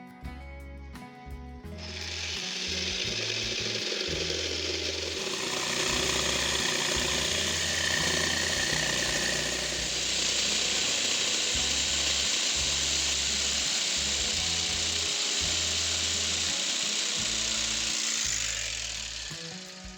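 A power tool running steadily, starting about two seconds in and stopping near the end, over background music.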